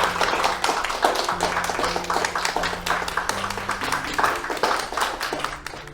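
Audience applauding, a dense run of hand claps that thins slightly near the end, over low sustained music notes.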